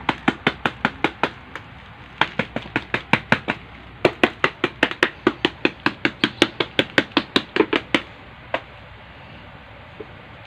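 Rapid light taps on a plastic flower pot, about four or five a second in several runs with short pauses, knocking the pot so the freshly filled potting mix settles and firms up. A last single tap comes after a longer pause.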